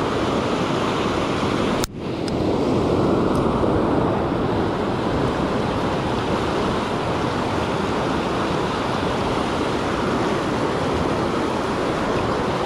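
River rapids rushing over rocks: a steady, loud whitewater rush, with a brief break in the sound about two seconds in.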